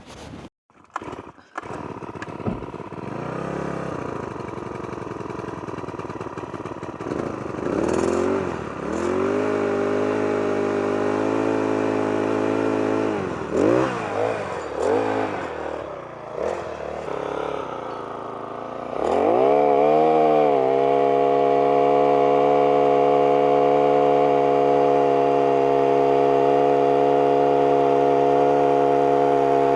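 An engine is revved up and down several times, then brought up to higher revs and held there steadily for the last third.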